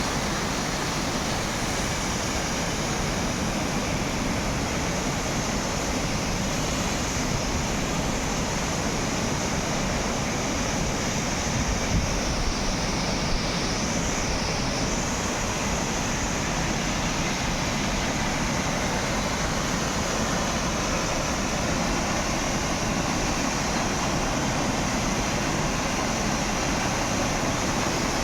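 Waterfall's falling water making a steady, unbroken rushing noise.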